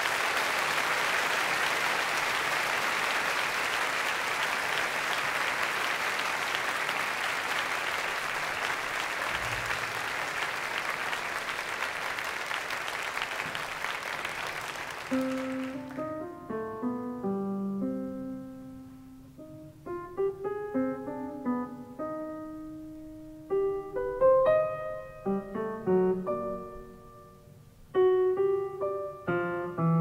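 Live audience applauding, the applause slowly dying away over about fifteen seconds. A solo piano then starts, playing separate notes and chords.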